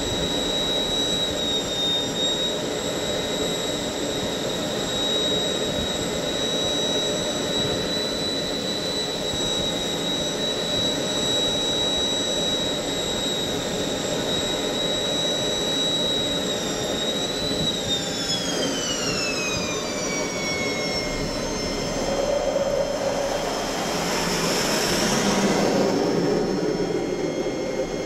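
Fighter jet engine heard from the aircraft, a steady roar with a high turbine whine. About two-thirds of the way through, the whine falls steadily in pitch as the engine spools down. Near the end a louder rushing swell rises and fades.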